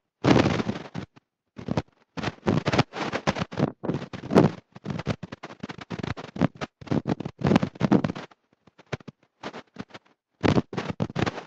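A preacher's voice speaking in short broken phrases, chopped by abrupt gaps of silence, with a sparser stretch near the end.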